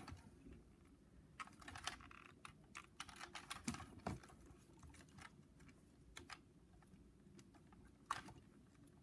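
Faint, scattered light clicks and rattles of plastic Lego Technic parts being handled.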